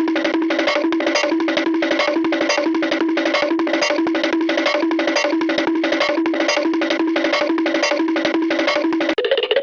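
Music cue: a plucked-string riff of quick, evenly repeated notes on one steady pitch, about four a second, with a sharp click on each stroke. It cuts off near the end and a different, higher-pitched cue starts.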